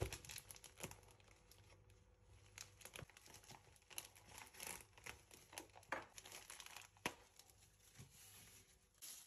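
Faint plastic packaging crinkling and tearing as a parcel is unwrapped by hand and slit open with a knife, in many short, irregular crackles.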